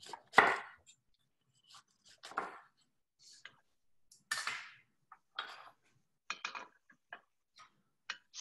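Knife cutting a cantaloupe in half on a wooden cutting board: a series of separate short crunches and knocks, the loudest about half a second in and again about four and a half seconds in.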